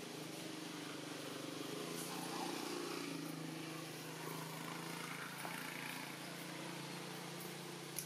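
A motor vehicle engine running steadily, a low hum that holds for the whole stretch, with a few faint ticks over it.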